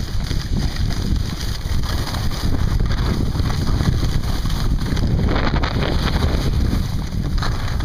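Wind buffeting the microphone during a fast downhill run on a ski slope: a loud, steady rumble, with brief surges of higher hiss from sliding on snow around five seconds in and again near the end.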